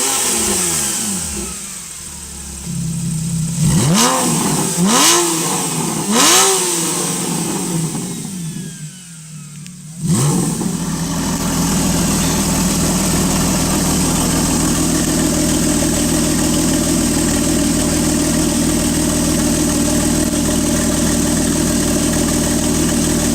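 Porsche engine blipped three times in quick succession, each rev rising sharply and dropping back to idle. About ten seconds in, an engine starts with a brief flare and settles into a steady idle.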